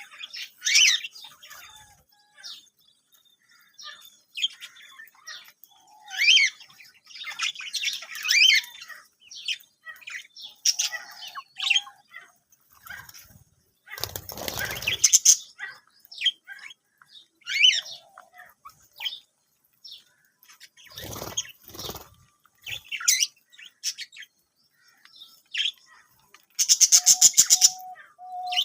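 Budgerigars chirping and warbling in short, overlapping bouts. Two brief flurries of wing-flapping come about halfway through and again a few seconds later. A fast run of rapidly repeated chirps comes near the end.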